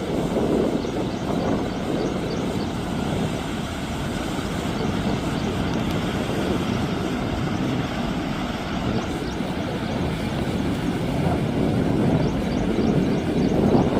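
Floodwater rushing over a washed-out road in a steady, loud rush.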